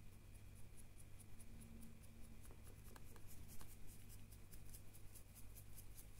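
Faint, quick scratchy strokes, several a second, of a paintbrush dry brushing over the textured rocks and sand of a 3D-printed statue base, over a steady low hum.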